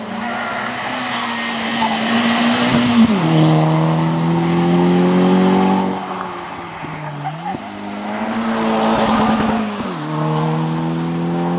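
Volkswagen Golf engine revving hard under full acceleration, its pitch climbing and then falling sharply at upshifts about three seconds in and again near the end, with a brief dip and climb around seven seconds where the throttle comes off and goes back on.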